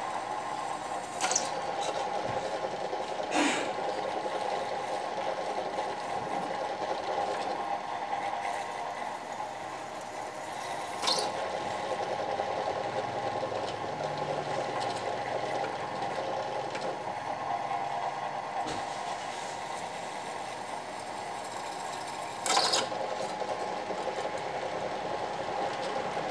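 A small bench machine tool's motor runs steadily while its cutter works a metal piece clamped in a vise, fed by hand with a lever. Four brief sharp scraping squeals stand out, about a second in, at three seconds, near the middle and near the end.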